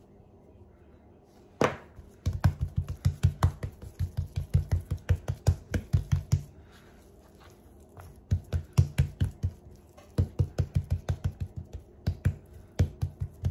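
Hands patting raw steak on a cutting board to rub in salt, garlic and pepper: quick wet slaps, about five a second, in two runs with a short pause between. A single sharp knock comes just before the first run.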